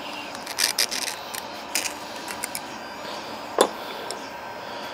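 A slim metal tool scraping and tapping inside the bore of a four-jaw lathe chuck: light scattered scrapes and clicks, with one sharper click about three and a half seconds in.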